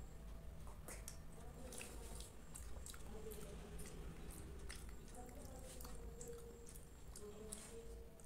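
Soft, wet chewing and lip smacks of a mouthful of kheer, a creamy rice pudding, close to the microphone, with scattered short clicks throughout.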